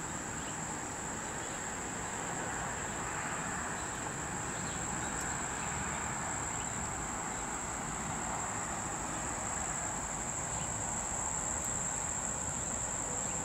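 Steady, high-pitched insect chorus: an unbroken trill that holds one pitch, over faint outdoor background noise.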